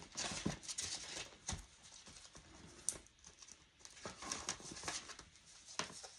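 Paper banknotes and plastic binder sleeves rustling softly as cash is handled and tucked into a ring binder, with scattered light taps and clicks.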